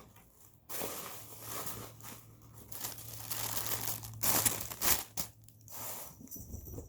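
Paper packing material in a subscription box crinkling and rustling in irregular bursts as it is handled and pulled aside, loudest about two-thirds of the way through.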